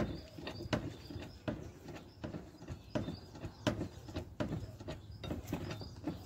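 Hydraulic cab-tilt hand pump on a Mahindra Blazo 31 tipper truck being worked with a lever bar: a short click or clunk on each stroke, about one every three-quarters of a second, as the cab is pumped up.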